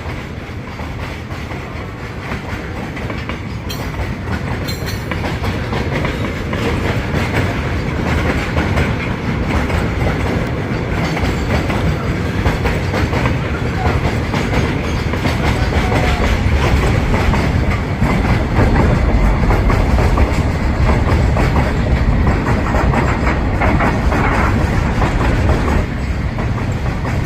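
Freight train of loaded cement wagons hauled by a WDG6G diesel locomotive running through at speed, its wheels clattering steadily over the rail joints. The clatter grows louder over the first twenty seconds or so, then holds.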